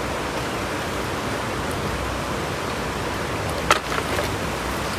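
Steady rushing of a shallow river flowing over stones, an even hiss throughout, with one brief sharp splash or knock a little before four seconds in.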